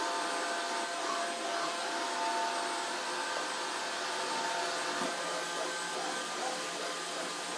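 Vacuum cleaner running steadily, a motor hum with a faint whine over the airflow noise, with a brief knock about five seconds in.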